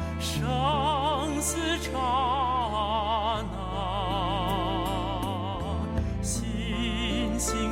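Slow, solemn music: a melody with wide vibrato over long-held bass notes.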